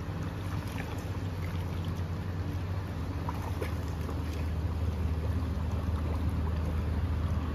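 Trout river running high: a steady rush of water with a strong low rumble.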